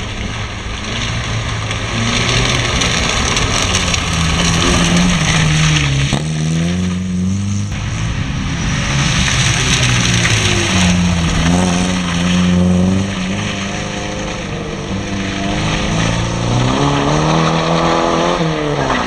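Rally car engine driven hard through a slalom course, its revs climbing and falling several times as it accelerates, lifts off and changes gear, with sharp drops about six, twelve and eighteen seconds in.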